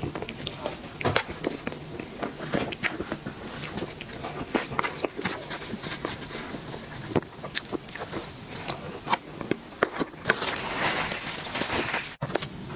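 Close-miked eating of a dessert: irregular wet smacks, clicks and chewing sounds. Near the end there is a denser, hissy stretch lasting a couple of seconds.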